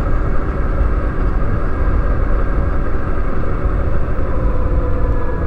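Wind noise and low road rumble from riding a 2020 Zero DSR electric motorcycle, with the electric motor and belt drive whining at several steady pitches that dip slightly near the end as the speed changes. The drive belt is newly replaced.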